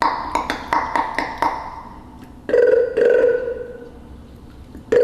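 Beatboxed mouth sounds: a quick run of sharp clicks, then two held, buzzing vocal tones starting about halfway through.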